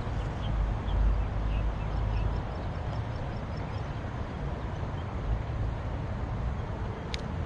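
Steady outdoor background noise with a low rumble, with a few faint bird chirps scattered through it and one sharp, high chirp near the end.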